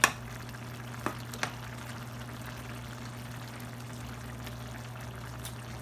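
A utensil clinking sharply against a cooking pot three times in the first second and a half, the first the loudest, over a steady low hum and hiss from the kitchen.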